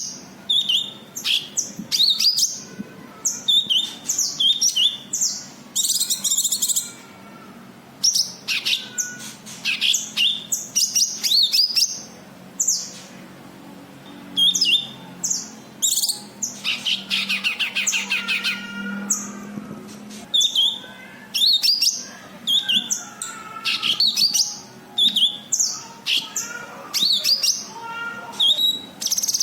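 Cucak kinoi singing: a long string of quick, varied chirps and whistled notes with short gaps, broken by rapid trilled runs about two-thirds of the way through and again at the end.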